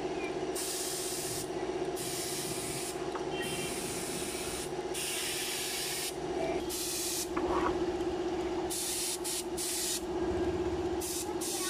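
Air spray gun hissing in repeated bursts of about a second each as the trigger is pulled and released, spraying enamel paint onto an iron window grille, over a steady hum.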